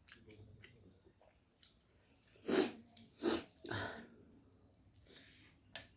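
Close-up eating sounds: soft chewing and mouth clicks, broken about two and a half seconds in by three loud, sharp breaths of air in quick succession.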